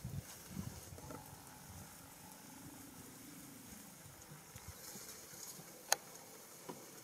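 Quiet outdoor ambience with soft low rustles and thumps in the first second, a faint wavering tone in the middle, and one sharp click about six seconds in.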